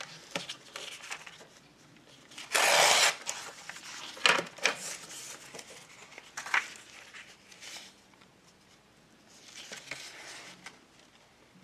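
Paper torn against a plastic tear-guide ruler in one quick rip about two and a half seconds in, followed by a few light taps and paper rustles as the torn piece is handled.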